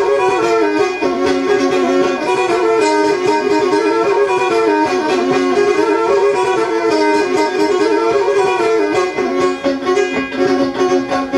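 Black Sea kemençe, a small three-stringed fiddle held upright on the knee and bowed, playing a fast, continuous instrumental melody with notes sounding on two strings at once.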